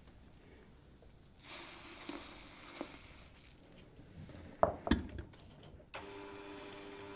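Sugar pouring in a soft hiss into a glass bowl of frothy egg whites, then a few sharp knocks, the loudest sounds here. About six seconds in, an electric hand mixer switches on and runs with a steady hum, its beaters whipping the whites.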